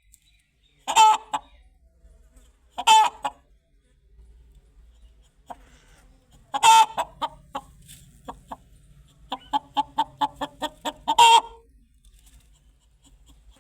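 Chicken clucking: loud single calls a couple of seconds apart, then a quick run of short clucks, about five a second, ending in another loud call.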